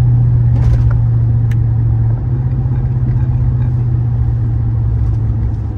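Steady low drone of a truck's engine and road noise heard from inside the cab while driving, shifting slightly about two seconds in.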